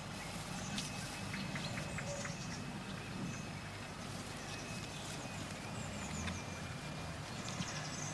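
Outdoor ambience: small birds chirping in short, high runs a few times over a steady low rumble.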